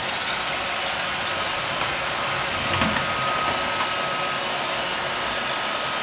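iRobot Roomba robot vacuums running on carpet test beds: a steady mechanical noise of their motors and brushes, with a faint thin high tone in the middle.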